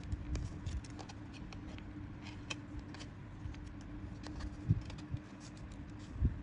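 Light scratching and crinkling clicks of a craft-knife point and fingertips working a paper template on a thin metal sheet, over a steady low hum, with a couple of dull knocks in the second half.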